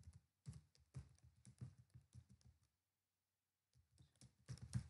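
Faint typing on a computer keyboard: a run of separate key clicks, a pause of about a second just past halfway, then another run of key clicks near the end.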